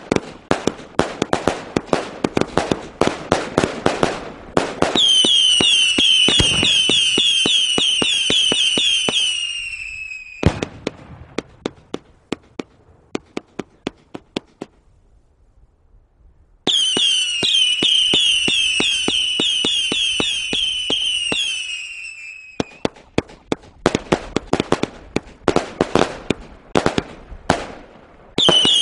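A 225-shot 1.3G firework cake (Waynes World 'Flower Exhibition') firing in phases. It opens with a rapid run of bangs, then many overlapping falling whistles for about five seconds, then sparse pops that die to a short lull about halfway. The whistles start up again, and a second fast run of bangs follows near the end.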